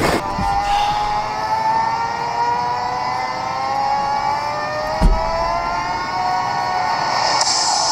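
Boat's outboard motor running and slowly rising in pitch as the boat speeds up, with a single thump about five seconds in.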